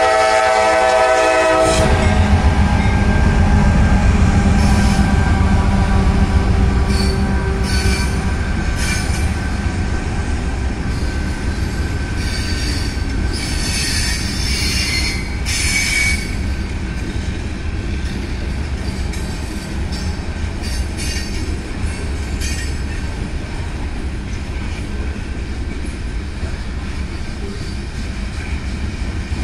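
Norfolk Southern freight train: the locomotive's horn chord cuts off about two seconds in, then the diesel locomotives and the freight cars roll past as a heavy rumble. Brief high wheel squeals and clanks come between about seven and sixteen seconds in, and the cars' rolling then eases off gradually.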